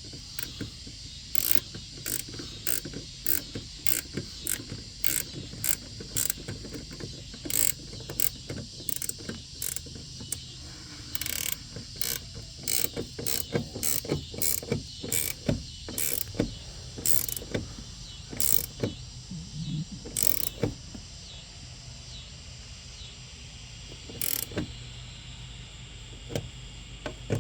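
Hand ratchet wrench clicking in quick, uneven runs as the door hinge nuts are tightened down. The clicks thin out to a few scattered ones after about twenty seconds.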